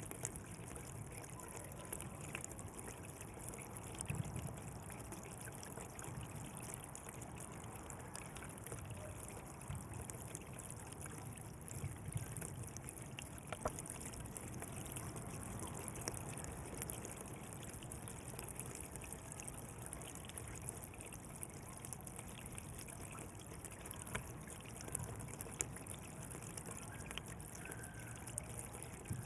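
Water flowing and trickling along a canal, a steady wash with small splashes and gurgles.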